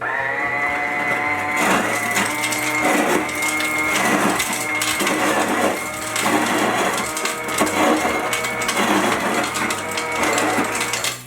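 Whirlpool side-by-side refrigerator's through-the-door ice dispenser running: a steady motor whine with ice clattering out, starting suddenly and cutting off suddenly about eleven seconds later.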